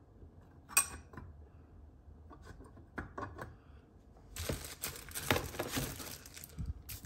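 Packaging being handled as the next knife is unwrapped: crinkling and rustling of paper and plastic that grows busier from about four seconds in. There is a sharp click about a second in and a few light knocks before it.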